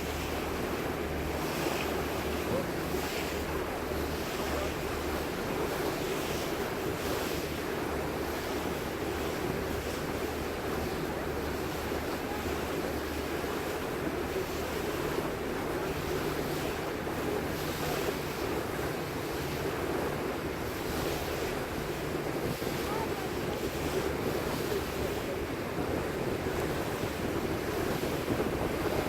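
Steady rush of wind and water from a moving tour boat, with the low, even drone of the boat's engine underneath and wind buffeting the microphone.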